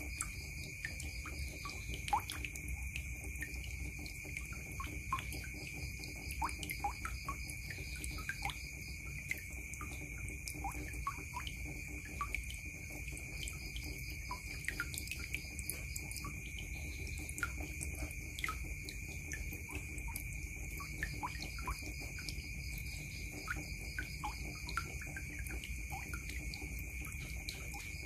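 Water dripping and trickling from above into a blue plastic basin partly full of water: a stream of irregular plinks and small splashes, several a second.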